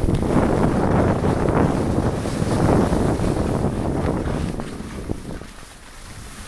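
Wind rushing over the microphone of a camera carried by a skier going fast downhill, with skis scraping over the packed snow; loud for about five seconds, then dropping off near the end.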